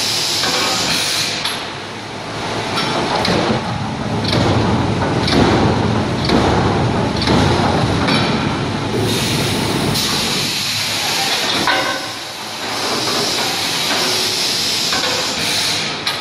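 Servo-motor electric screw press working through its pressing cycle: a loud steady hissing rumble, with a string of short knocks through the middle.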